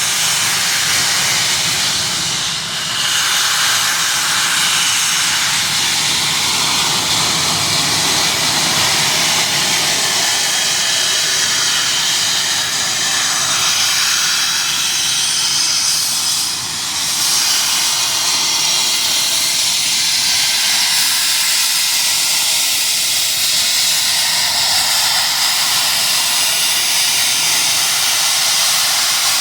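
GWR Grange-class steam locomotive letting off steam in a loud, steady hiss with no exhaust beat, easing briefly twice.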